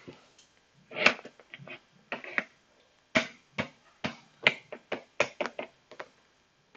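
An irregular series of short, sharp clicks or taps, a dozen or more, the loudest about a second in.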